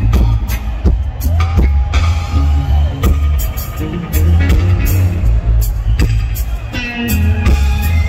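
Live reggae band playing, with a heavy, pulsing bass line and steady drum hits.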